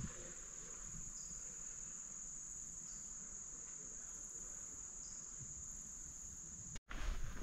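Steady, high-pitched insect chorus, with a few short fainter calls a little lower in pitch about every two seconds; the sound cuts off abruptly near the end.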